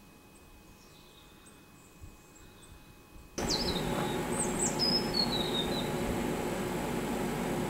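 Faint birdsong in quiet open air. About three seconds in, it cuts abruptly to the steady hum and whir of a hire fridge unit's refrigeration plant running, with birds chirping over it.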